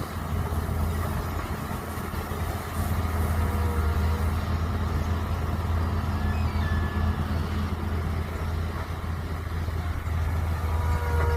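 Mini excavator engine running steadily, with a few brief, faint higher tones now and then.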